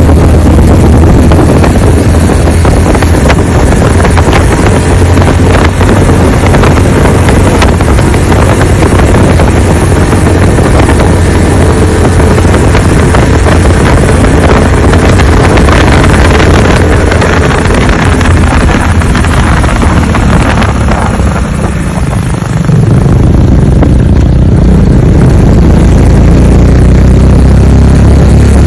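Loud, steady low rumble of a moving vehicle with wind noise on the microphone, easing briefly about twenty seconds in before returning.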